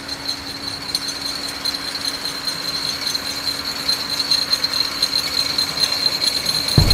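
Steel wheels of a small homemade rail cart rattling along the track as it approaches, with a steady high-pitched ring, growing slightly louder.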